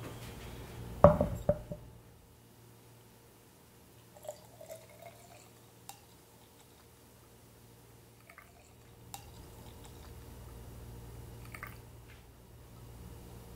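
Green lemonade poured from a glass measuring jug into glass jars over ice: a few faint trickles and glass clinks. A cluster of loud knocks about a second in is the loudest sound.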